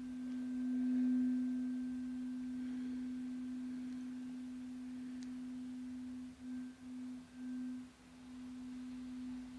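Struck tuning fork ringing a single steady pure tone with a faint higher overtone. It swells about a second in, then pulses in and out a few times near the end.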